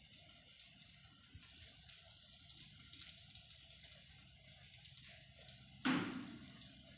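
Brinjal slices coated in egg and semolina shallow-frying in coconut oil on a tawa: a faint sizzle with scattered small pops, and one louder knock about six seconds in.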